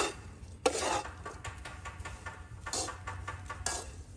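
Wooden chopsticks stirring and tossing sugar-coated coconut strips in a non-stick wok: short, irregular scrapes and clacks against the pan as the candied coconut is worked while its sugar dries and crystallizes.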